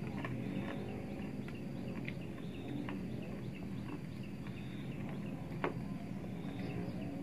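Quiet room ambience with a steady low hum and faint, short, high chirps repeating about every half second, like small birds calling outside. A sharp click stands out about five and a half seconds in, among a few lighter ticks.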